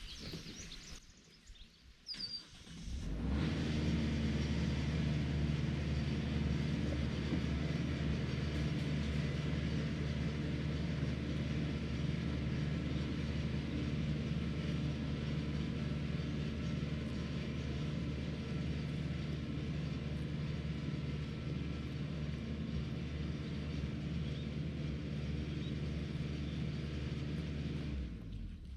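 An engine running steadily at an even speed, with a low, constant hum; it comes in about three seconds in and cuts off abruptly near the end.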